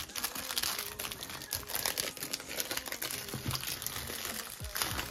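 Plastic shrink-wrap crinkling in a dense, continuous run of crackles as it is pulled and crumpled off a cardboard trading-card box.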